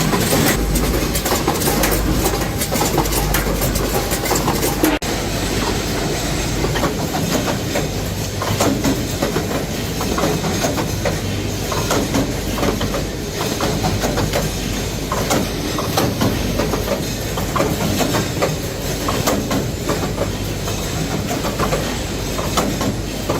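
Detergent-capsule tray-packing machine running: a steady mechanical clatter of many small clicks and knocks, with a brief break about five seconds in.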